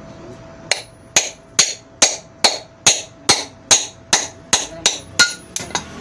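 A hammer strikes a ceiling fan motor about a dozen times in an even rhythm, a little over two blows a second. Each blow gives a sharp metallic knock with a short ring as it knocks the motor apart to open it.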